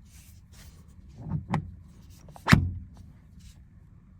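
Clicks and a sharper clunk from an NRG 2.0 steering-wheel quick release being worked: two soft knocks, then a louder clunk about two and a half seconds in.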